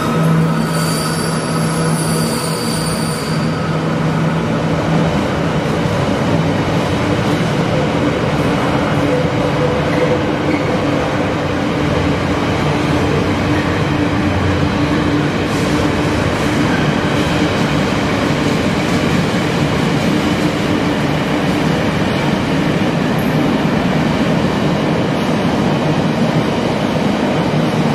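A train passing on the rails: a steady, loud rumble of wheels on track, with a high wheel squeal over the first few seconds.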